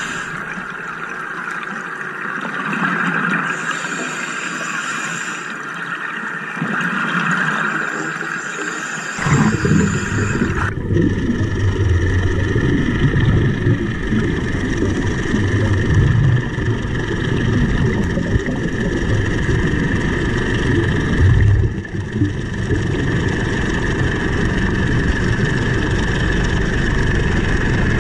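Underwater sound of compressor diving: a steady engine-like hum with rumbling, gurgling bubble noise from a diver's air, the deep rumble coming in strongly about nine seconds in.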